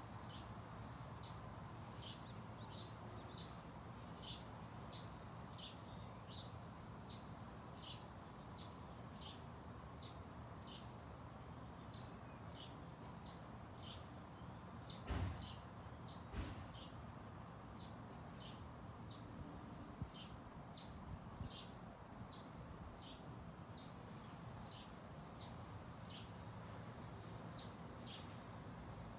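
A bird repeating a short, high, falling note, roughly one and a half times a second, over a steady low hum. Two dull thumps sound about halfway through.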